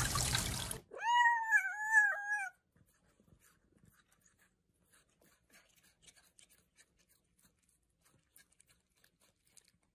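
Hiss cuts off just under a second in, then a domestic cat meows once, a wavering call of about a second and a half, followed by faint clicks as it chews a strawberry.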